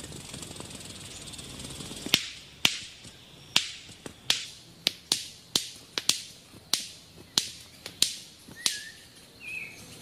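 White-collared manakin making loud, sharp wing snaps in its courtship display, about thirteen single snaps at irregular intervals of roughly half a second to a second, starting about two seconds in. Two short chirps come near the end.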